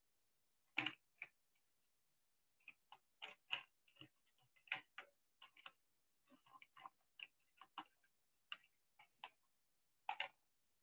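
Typing on a computer keyboard: irregular key clicks, single and in quick runs, with short pauses between them.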